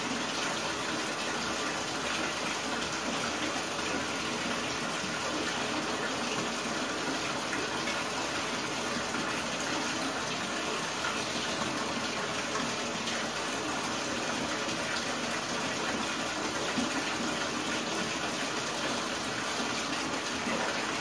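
Water running steadily from the bathtub tap into the tub: a constant, even gushing.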